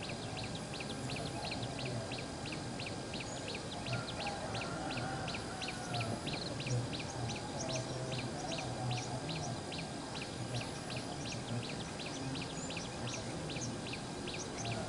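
Outdoor ambience: a high, short chirp repeating evenly about three to four times a second, over a low steady background rumble, with faint distant animal calls.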